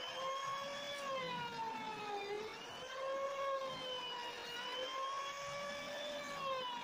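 Router spindle motor on a homemade CNC router running with a high, steady whine. The whine wavers slightly in pitch and dips briefly about two seconds in and again near the end.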